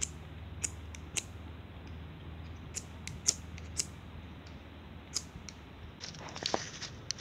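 Dry twigs and coconut husk fibre handled and laid between stones for a cooking fire: separate sharp snaps and clicks, turning into denser crackling and rustling near the end.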